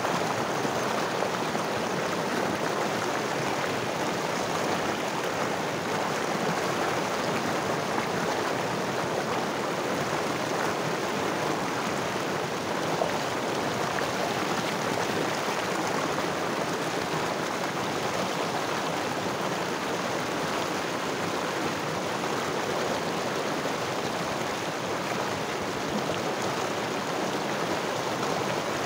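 Muddy floodwater rushing over rocks in a swollen mountain river, a loud steady roar of turbulent water.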